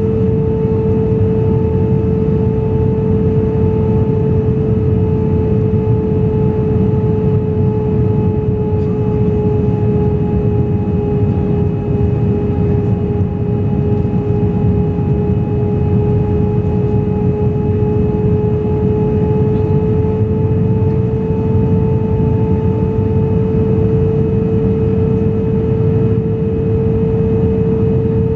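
Jet airliner cabin noise during the descent to land: a steady rush of airflow with the engines' droning hum, whose pitch sags slightly midway and rises again toward the end.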